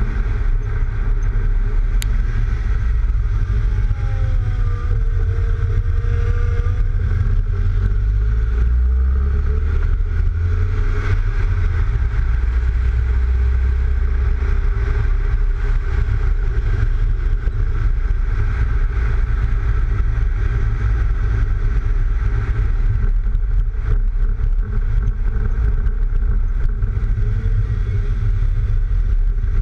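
Heavy wind rumble on the microphone of a camera mounted on the outside of a lowered Mk3 Volkswagen Golf, over steady tyre, road and engine noise as the car drives along; the uploader blames the wind noise on the roof racks. A single sharp tick about two seconds in.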